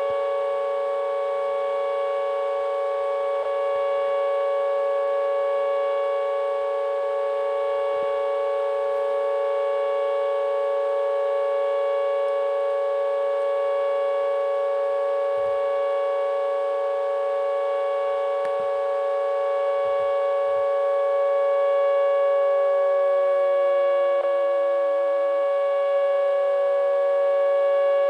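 Whelen WPS-4004 electronic outdoor warning siren sounding its steady alert tone, a held chord of several pitches. Near the end some of the pitches start sliding downward.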